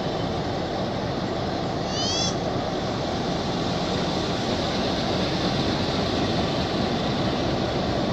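Diesel locomotives running with a steady, heavy engine noise. About two seconds in, a brief high chirp sounds over it.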